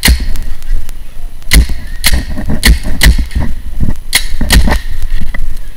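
Paintball marker firing about seven sharp shots at uneven intervals, some in quick pairs, with low thuds under the shots.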